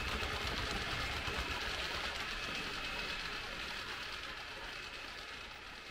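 H0 model freight train of tank wagons rolling along Märklin layout track, its wheels giving a steady rumble and clatter over a faint high whine. The sound fades evenly as the train moves away.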